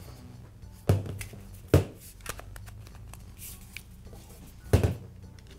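A Makita angle grinder's plastic rear housing and cord being handled on a metal worktop: three sharp knocks, about one second in, just under two seconds in and near the end, with small clicks and light rustling between them.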